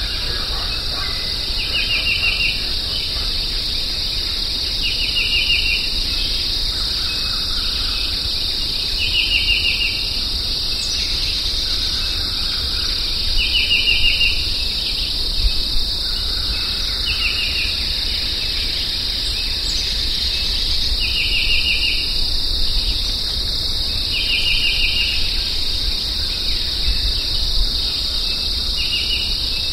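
Insects in a steady high-pitched chorus. A short, rapid trill of ticks comes back every three to four seconds over it.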